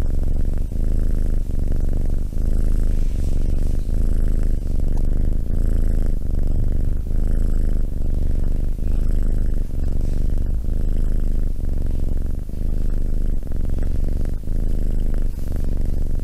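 Tabby kitten purring steadily close to the microphone, the purr swelling and easing with each breath, a little under a second per breath.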